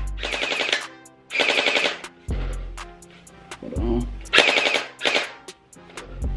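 Electric SKD gel blaster firing gel balls in several short rapid-fire bursts, with quieter gaps between them, over background music.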